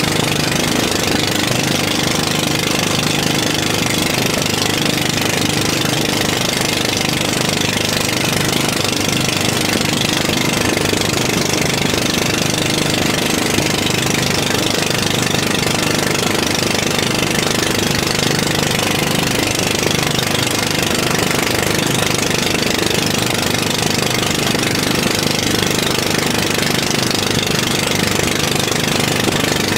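Engine of a motorized bangka outrigger boat running steadily at cruising speed, with an even hiss over it.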